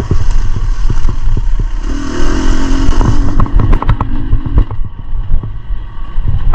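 Two-stroke dirt bike engine (Beta 300 RR) running on rough single track, its note rising and holding for a couple of seconds in the middle. Over a heavy low rumble come many sharp rattles and knocks from rocks and the bike's chassis.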